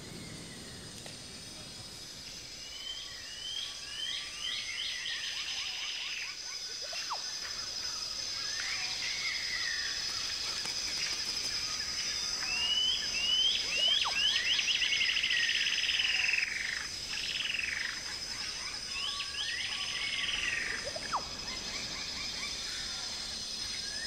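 Amazon rainforest ambience: a steady high-pitched insect drone, with runs of quick rising chirped calls recurring every few seconds, loudest about midway.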